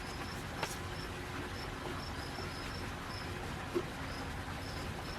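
An insect, likely a cricket, chirping in short, high repeated chirps over a steady low background hum. Two light knocks sound, one about half a second in and one near the four-second mark.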